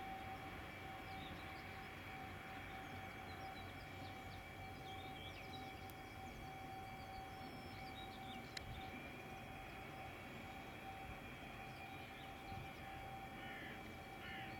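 Steady distant whine of idling jet aircraft engines across the airfield, with small birds chirping now and then and a single sharp click a little past halfway.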